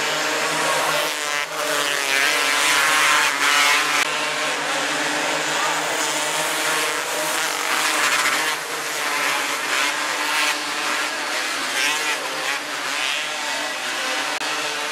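Several 270cc micro sprint car engines racing together, a dense blend of high revving engine notes that waver up and down as the pack laps the track.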